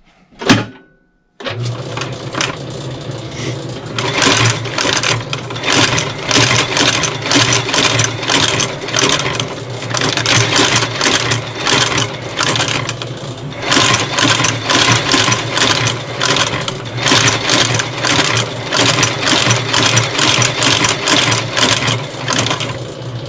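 An outsole stitching machine runs, sewing a lug sole to a boot's welt with green thread. Its motor hums under rapid, even stitch strokes, about three a second. It starts after a sharp knock about a second and a half in and winds down near the end.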